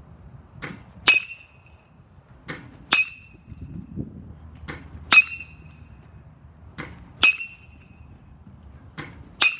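Baseball bat hitting pitched balls in a batting cage: five sharp, ringing metal-bat pings about two seconds apart, each preceded by a fainter click about half a second earlier.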